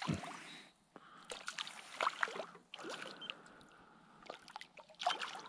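A hooked fish splashing and thrashing at the water's surface beside the canoe: a run of irregular sharp splashes and slaps over light water noise.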